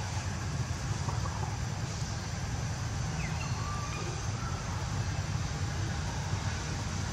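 Steady low rumbling background noise with an even hiss above it, and a few faint, short, high chirps scattered through it.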